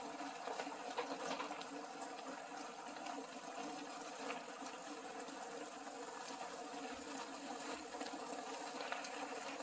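Beef bulgogi simmering in its marinade in a frying pan: a quiet, steady bubbling and sizzling with faint scattered crackles.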